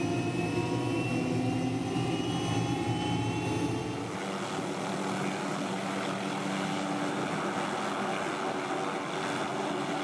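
McDonnell Douglas MD 500E police helicopter running, its turbine whine rising slowly in pitch. About four seconds in the sound changes to a steadier rotor and engine drone as the helicopter hovers just off the ground.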